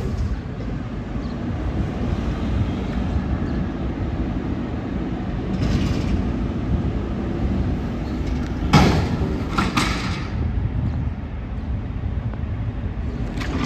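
Front-load garbage truck's diesel engine running hard to drive the hydraulic arms as it lifts a dumpster over the cab. A few loud metal clanks and bangs come around nine to ten seconds in.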